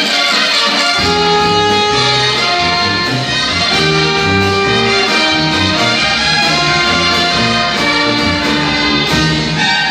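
Brass band music for marinera norteña, with trumpets and trombones holding long notes over a bass line that comes in about a second in.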